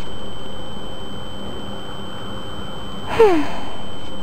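Steady rushing background noise with a thin, constant high whine, broken about three seconds in by one short vocal sound that falls in pitch, like an 'oh'.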